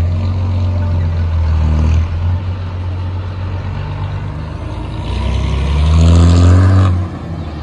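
Motor vehicle engine running with a deep steady hum, revving up about five seconds in and dropping back sharply about two seconds later.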